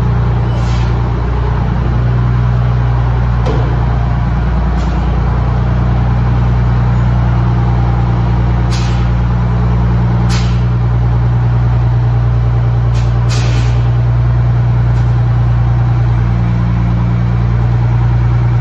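American LaFrance fire engine idling steadily with a deep, even engine hum, and a few short sharp ticks over it.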